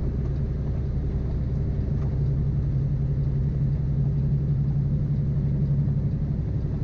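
Heavy diesel engine running steadily with an even, low hum.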